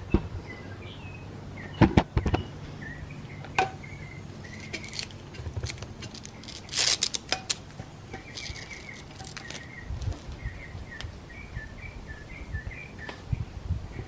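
Clicks and knocks from an air-hose quick coupler and jumper cables being handled on an automotive smoke machine, with a short hiss about seven seconds in. Small birds chirp in the background.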